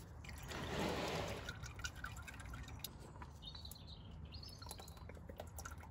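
Engine oil dripping and trickling as the old spin-on oil filter is unscrewed by hand and pulled off, with a soft rush about a second in, then scattered small drips. A few faint bird chirps come in past the middle.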